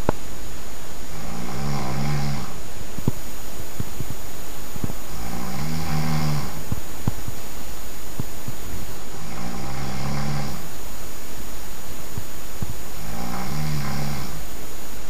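A sleeping person snoring loudly: four long, pitched snores at an even pace, about one every four seconds.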